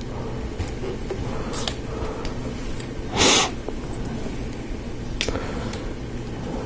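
Lego Technic parts being handled: a few light plastic clicks, and one short hiss about three seconds in, over a steady low hum.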